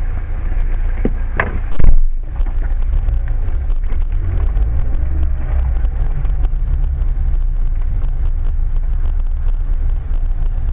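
Steady low rumble of a car's engine and tyres heard from inside the cabin while driving. About two seconds in comes one loud, low thump.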